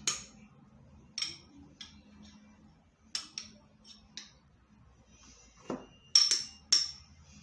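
Metal spoon clinking and scraping against a small bowl while soft smen is scooped into it as a measure, in a string of short sharp clinks, the loudest few near the end.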